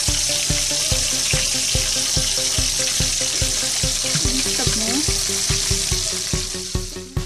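Hot cooking oil sizzling steadily in a frying pan, cutting off just before the end, over background music with a steady beat.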